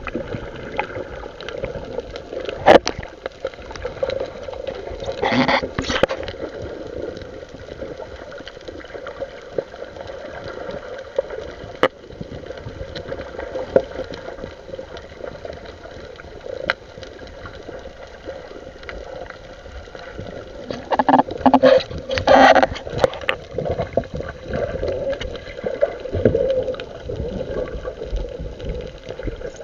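Water sloshing and splashing around a small fishing boat, with scattered sharp knocks and a steady hum underneath. Two louder stretches come about five seconds in and again around twenty-two seconds in.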